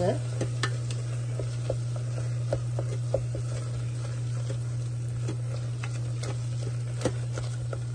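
Wooden spatula scraping and clicking against the stainless-steel inner pot of an electric pressure cooker as a thick onion-tomato masala is stirred, in short irregular strokes over a steady low hum.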